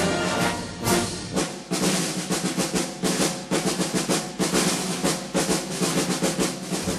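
Orchestral background music in which the held brass-and-strings chords give way, about a second and a half in, to a passage of rapid drum strokes, snare and bass drum, that runs until just before the orchestra returns.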